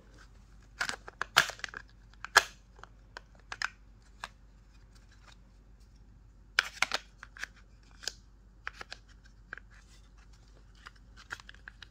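Scattered clicks and light knocks of rifle parts and a polymer drop-in handguard being handled and fitted by hand, irregular and spaced out, the sharpest a little over a second in, at about two and a half seconds and at about six and a half seconds.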